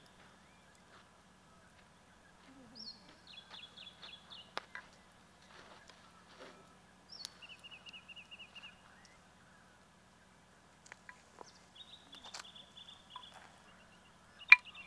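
Night ambience of an animal calling: a fast pulsed trill about a second long, high in pitch with a brief sliding start, repeats three times several seconds apart. Sparse clicks and crackles and a faint steady low hum sit beneath, and one sharp, loud click comes near the end.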